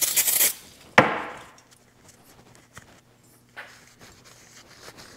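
A short burst of aerosol brake-cleaner spray, then a single sharp clack about a second in as parts of the differential clutch pack are handled, followed by a few lighter knocks.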